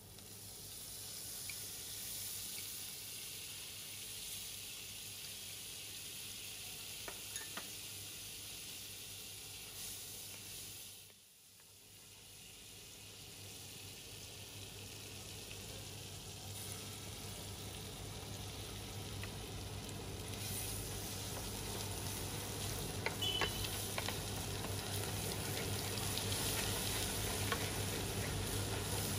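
Butter sizzling as it melts and foams in a frying pan. The sizzle drops away briefly about a third of the way in, then grows steadily louder, with light scrapes of a wooden spatula stirring it near the end.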